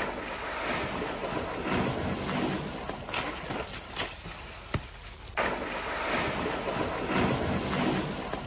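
Rushing, wind-like outdoor noise with a few sharp knocks. It drops away for about a second halfway through, then returns.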